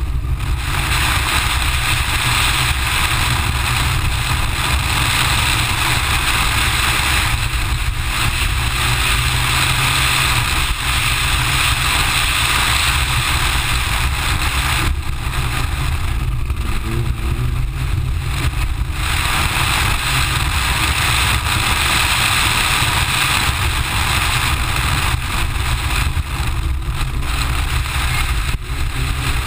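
Mitsubishi Lancer Evo IX rally car's turbocharged four-cylinder driven hard, heard from a camera on the car's body with heavy wind rumble on the microphone. The higher engine and road noise drops away for a few seconds around the middle, then comes back.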